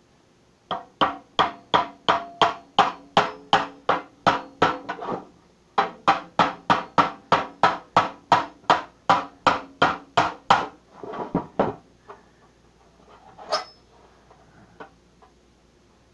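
Steady blows, about three a second, driving a knife blade through a cookie tin's thin metal lid, the tin ringing with each strike. Two long runs of strikes with a short pause between, then a few lighter knocks and one sharp click near the end.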